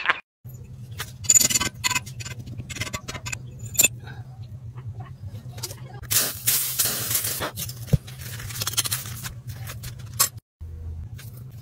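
Scraping in foundry sand and light metallic clinks as a freshly cast metal key is dug out of its sand mould, with a longer stretch of sand scraping about six seconds in, over a steady low hum.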